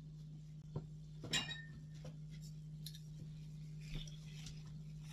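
A few light clicks and taps of condiment bottles and caps being handled, the loudest about a second and a half in with a brief ring after it, over a steady low hum.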